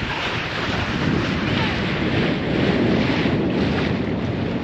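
Wind buffeting the microphone over the steady rush of water and waves along a sailboat's hull while under sail.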